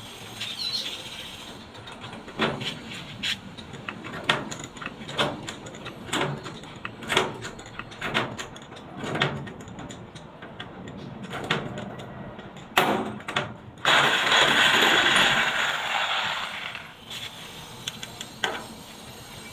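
Repeated sharp knocks, about one a second, from work on a washing machine's body, then a loud hissing noise lasting about three seconds near the end.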